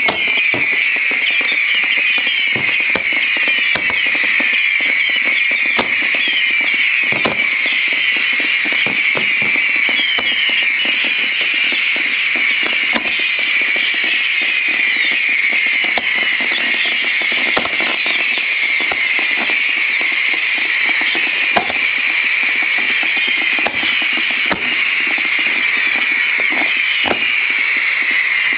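Fireworks going off at close range: a dense, continuous high whistling made of many short falling whistles, with scattered bangs and pops through it.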